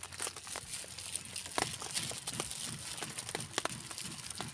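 Thin plastic food bag crinkling and crackling in scattered sharp bursts as it is handled and its curry emptied onto rice.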